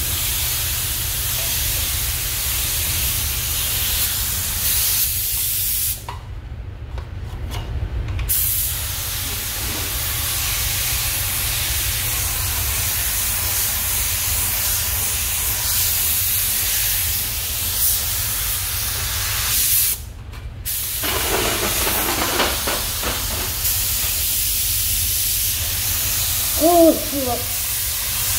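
Gravity-feed paint spray guns hissing as compressed air atomises the paint. The hiss stops twice when the trigger is let go, once for about two seconds and once briefly. A steady low rumble runs underneath.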